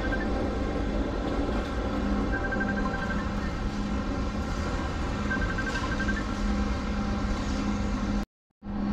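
Steady hum of a running vehicle engine, with a low even drone and rumble. Faint high chirps recur about every three seconds. The sound cuts out abruptly for a moment near the end.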